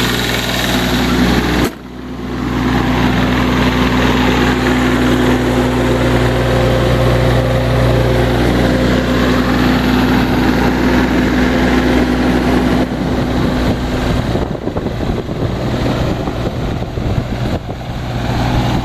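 Diesel engine of a 2002 Schaeff HR12 mini excavator running steadily, with a sudden brief drop in sound about two seconds in. From about fourteen seconds the steady hum thins out and the sound turns rougher and uneven.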